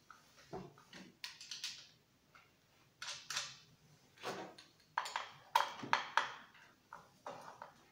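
Gloved hands handling a chainsaw on a wooden workbench: a run of irregular clicks and knocks from its plastic housing and parts being moved, busiest and loudest about five to six seconds in.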